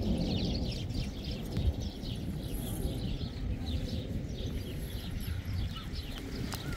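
Birds chirping, many short high calls in quick succession, over a steady low rumble as a storm approaches.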